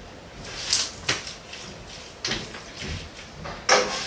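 A utensil scraping and knocking against a disposable aluminium foil pan as pasta and ground beef are stirred together, in about five short, scratchy strokes with the loudest near the end.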